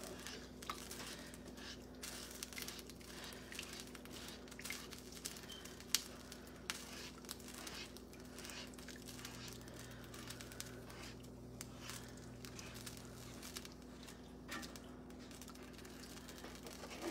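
Slotted plastic spoon stirring thick milk gravy in a cast iron skillet, with faint scrapes and irregular small clicks and taps against the pan, one sharper tap about six seconds in. A low steady hum runs underneath.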